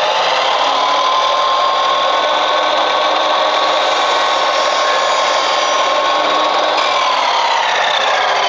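Chicago Electric 12-inch double-bevel sliding compound miter saw running at full speed with a steady high whine. About seven seconds in, its pitch begins to drop as the blade is lowered into wooden trim for a bevel cut.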